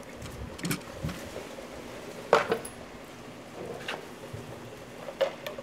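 Small steel gun parts clinking against a stainless steel pot as they are handled: about half a dozen short, sharp metallic knocks, the loudest a little over two seconds in and two more close together near the end.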